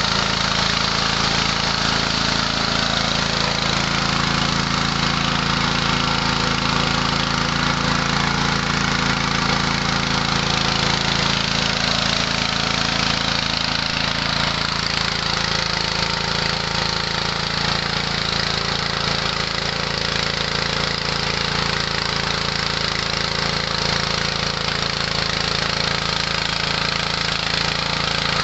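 Small 6.5–7 hp petrol engine running steadily, driving a mini rice huller and polisher, with the even whir and rush of the milling machine over the engine note.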